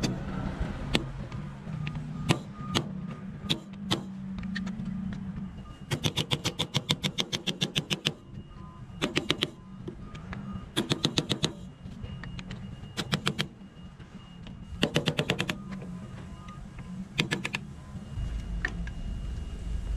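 Metal work on a forklift's wheel hub: a few single hammer taps on the hub, then several bursts of rapid metallic clicking, the longest about two seconds and the rest under a second.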